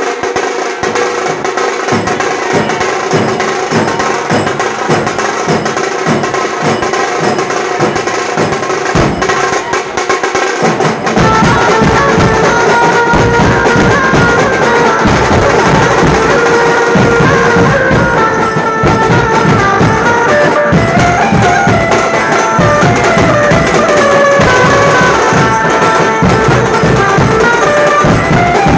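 A street procession band playing: drums beat a fast, dense rhythm. About eleven seconds in, the music gets louder and a horn melody joins over the drumming.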